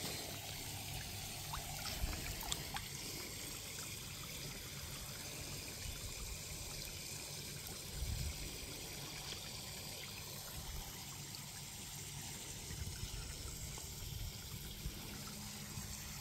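Water trickling steadily, with a few faint clicks about two seconds in.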